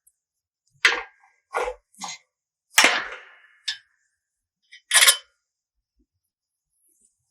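A series of about six sharp metal clanks, spaced irregularly over a few seconds, as a steel gate hinge and its fittings are handled.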